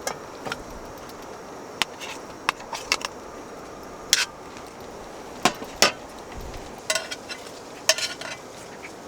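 Metal cooking utensils clinking and knocking against cookware, about nine irregular sharp clinks with a short ring, as in stirring and handling food in a pot.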